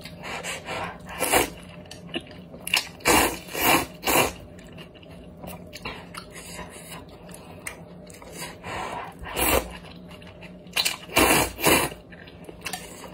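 Someone slurping noodles from a spicy broth, with quieter chewing between. There is one slurp about a second in, three quick ones around three to four seconds, then more near the end.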